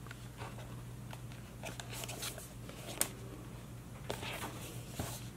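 Soft rustling and light taps of a small cardboard toy box being turned over in the hands, with a sharper tap about three seconds in.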